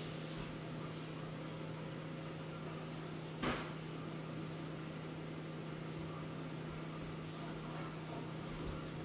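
Steady low electrical or appliance hum with a faint hiss, and one brief short sound about three and a half seconds in.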